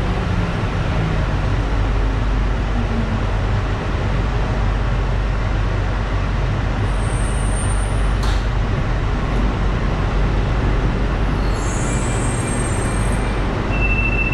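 A Santiago Metro Line 1 rubber-tyred train running, a loud steady rumble with a deep motor hum. A low falling motor whine fades out in the first few seconds, and a high steady tone starts near the end.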